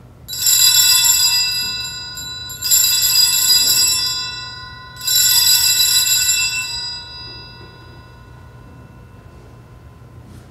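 Altar bells rung three times for the elevation of the chalice after the consecration. Each ring is bright and shimmering and fades away, and the last dies out a few seconds later.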